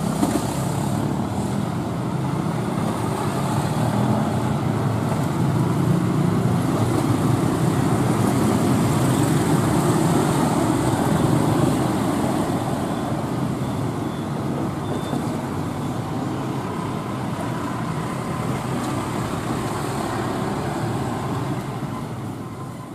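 Diesel-electric locomotive engine running as a passenger train rolls slowly in, a steady low rumble that swells in the middle and fades out at the very end.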